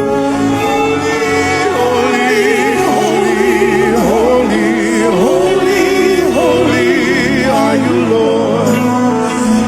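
Live gospel worship music: a singer's wordless, wavering vocal runs with vibrato over sustained chords.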